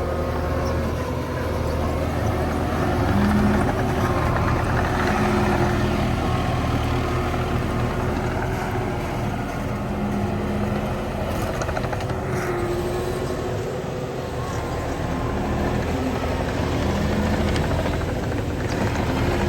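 Engine of a joystick-controlled farm machine, likely a compact loader, running steadily while being driven. A few short higher tones come and go over the drone.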